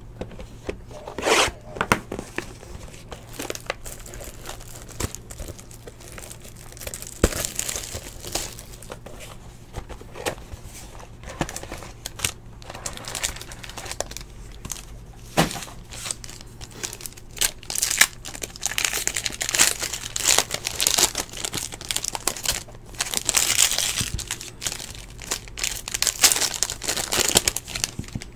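Foil trading-card pack wrappers being torn open and crinkled, with short clicks from cards being handled. The crinkling comes in bursts and grows denser in the second half.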